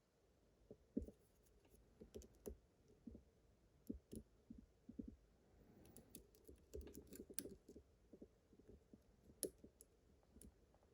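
Faint, irregular clicks and small scrapes of a lock pick and tension wrench working the pins inside a pin-tumbler lock cylinder, as the pins are lifted one by one to find the binding pin. The clicks come thickest a little past the middle.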